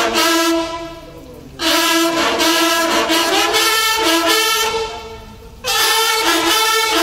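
Brass band music with trumpets and saxophones playing a rhythmic dance tune, which drops away briefly twice, about a second in and about five seconds in, before coming back in full.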